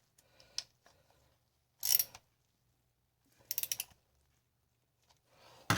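Short, separate bursts of metal clicking and ratcheting from hand tools on a car starter motor as it is reassembled: a single tick, then bursts about every one and a half seconds, the loudest at the very end.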